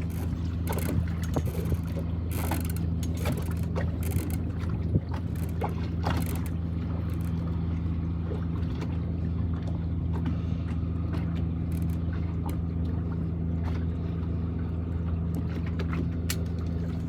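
Outboard motor of a small Yamaha fishing boat running at a steady speed, an even low hum. A few scattered clicks and knocks sound over it in the first several seconds.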